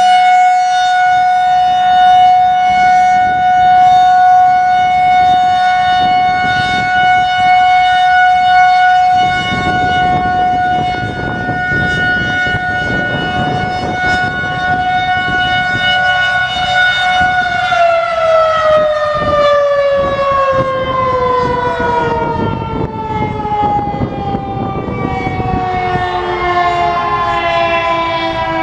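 Federal Signal 2001-130 outdoor warning siren sounding a steady tone on its monthly test, then, about 17 seconds in, winding down with its pitch falling slowly. Wind buffets the microphone from about 9 seconds in.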